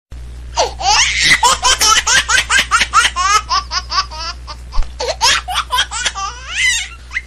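High-pitched laughter: a long run of quick, rapid-fire laughing pulses with swooping pitch, starting about half a second in, over a steady low hum.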